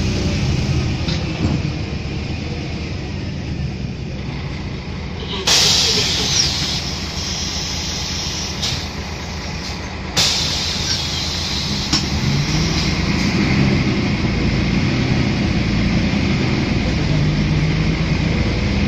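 City bus heard from inside: engine and road noise, then a sudden hiss of compressed air about five seconds in as the bus stops and its pneumatic doors work. A second hiss comes about ten seconds in, and then the engine rises as the bus pulls away.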